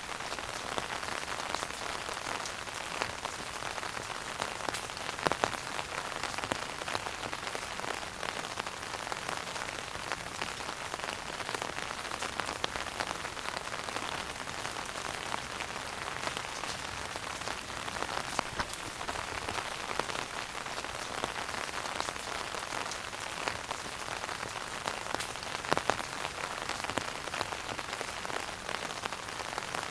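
Wood fire burning in a fireplace: a steady, dense crackle of many small pops, with two louder pops about five seconds in and near the end.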